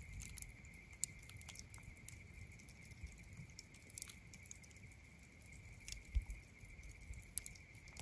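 Faint crackling of campfire embers: scattered small pops and ticks, some louder at about 4, 6 and 7.5 seconds in, over a steady thin high tone.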